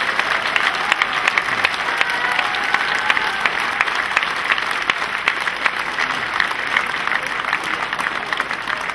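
Crowd applauding, many hands clapping at once, the clapping gradually thinning and quietening near the end.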